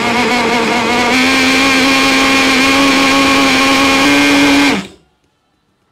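Portable rechargeable USB juice blender running, its blade spinning grapes and water into juice with a steady motor whine. The pitch steps up slightly about four seconds in, and the motor stops abruptly shortly before the end.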